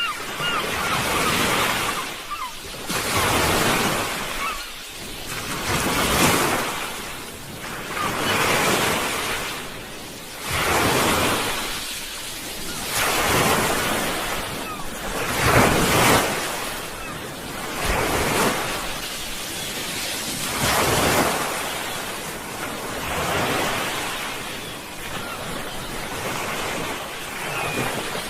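Sea waves breaking and washing onto the shore, a rushing surge that swells and ebbs every two to three seconds, with a few stronger breakers.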